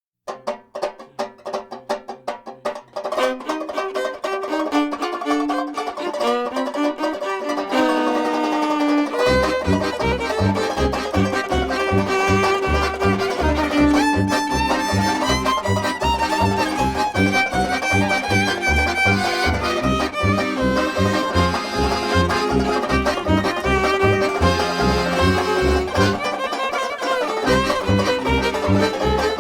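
Background music: a quick run of plucked notes opens it, then a fuller melody builds, with a steady low beat entering about nine seconds in and dropping out briefly near the end.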